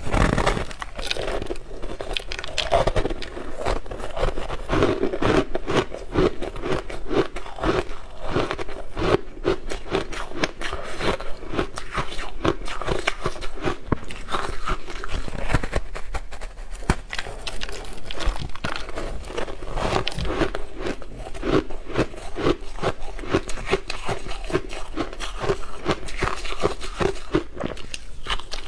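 Person biting and chewing powdery frozen ice: a continuous run of crisp crunches and crackles, bite after bite, with a steady chewing rhythm.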